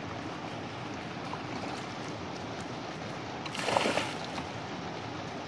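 Steady rush of running water in a trout pool, with one sharp splash about two-thirds of the way through as the surface is broken among the feeding trout.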